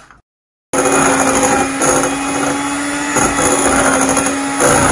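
Electric hand mixer running at a steady pitch, its beaters whirring through cake batter in a glass bowl. It starts just under a second in, after a brief silence.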